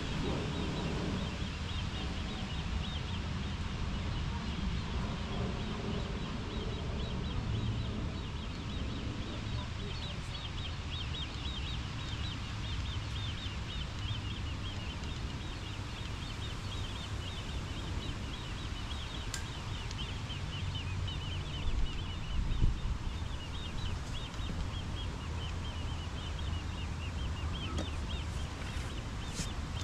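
Small birds chirping in quick, short notes over a steady low rumble of wind on the microphone, with a couple of low knocks about two-thirds of the way through.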